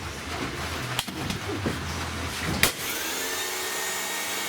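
Exposed vacuum cleaner motor running, broken up by two sharp knocks, about a second in and halfway through. Near the end the motor's whine steadies and climbs in pitch.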